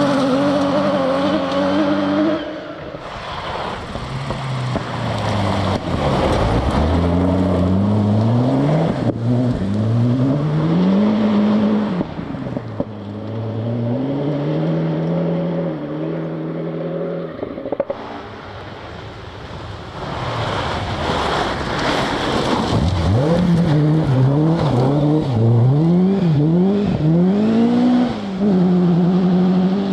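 Rally cars at speed on a forest stage, one after another, engines revving hard and dropping back through quick gear changes and throttle lifts.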